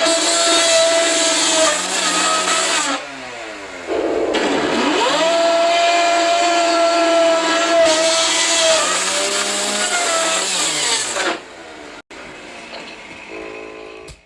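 Chainsaw engine running at speed. About three seconds in it drops toward idle, then revs back up, and it runs high until it slows again near the end. It idles more quietly before the sound cuts off abruptly.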